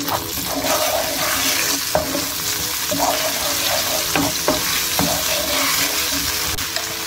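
Chopped garlic and ginger with dark soy sauce sizzling steadily in hot oil in a nonstick frying pan, stirred with a wooden spoon that scrapes across the pan now and then.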